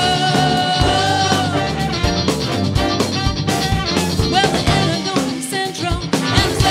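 Live rock band music: a female singer holds a long high note that ends about a second and a half in, over drum kit and electric guitar, and the band plays on with drum hits and wavering high phrases.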